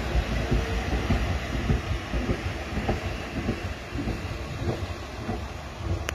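Passenger coaches of a metre-gauge train rolling past on the rails: a steady rumble with irregular wheel knocks. It slowly fades as the last coach goes by and the train moves away.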